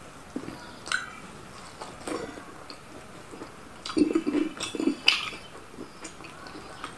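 Eating by hand: fingers scooping food from a plastic bowl and mouth smacks while chewing, as a few scattered clicks and then a denser run of smacks about four to five seconds in.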